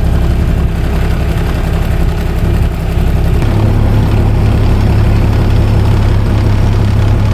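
Kubota side-by-side's engine running steadily as it is driven, with a loud low drone that drops to a lower, steadier tone about three and a half seconds in.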